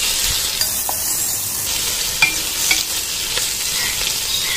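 Sliced onions sizzling in hot oil and ghee in an aluminium pot, stirred with a wooden spoon that knocks and scrapes against the pot every half second or so.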